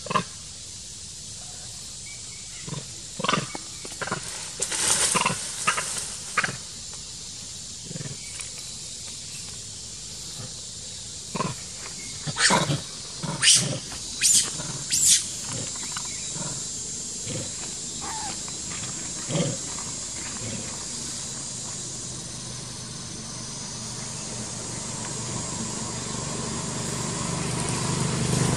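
Long-tailed macaques giving short, harsh cries, a cluster of them a few seconds in and another around the middle. Near the end a motor engine grows steadily louder as it approaches.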